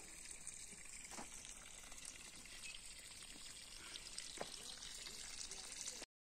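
Faint, steady outdoor hiss with a few light clicks, cutting off suddenly near the end.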